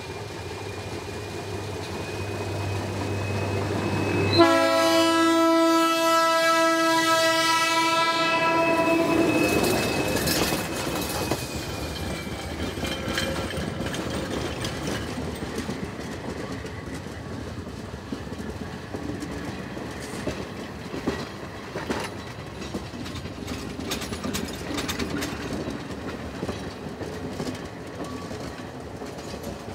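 ALCO DL 537 diesel locomotive approaching with its engine running, then one long horn blast of about five seconds, starting about four seconds in. The train then runs past with its wheels clattering over the rail joints.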